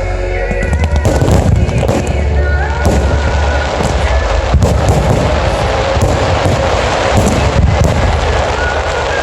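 Aerial fireworks bursting in rapid, irregular succession, many sharp bangs and crackles a second, over loud music with a steady deep bass and a sustained melody.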